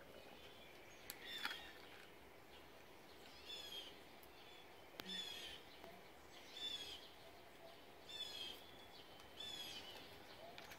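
A songbird singing faintly, the same short phrase of quick high chirps repeated about every second and a half, with a single light click about five seconds in.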